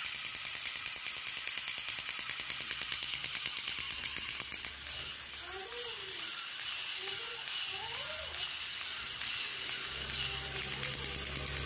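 Battery-operated crawling Spider-Man toy's motor and gears clicking fast and evenly as it crawls, with a few short rising-and-falling tones in the middle.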